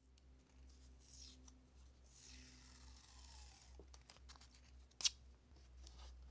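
Masking tape peeled off its roll with a long rasping pull, then torn off with a short, sharp crack about five seconds in, among small clicks and rustles of the tape being handled.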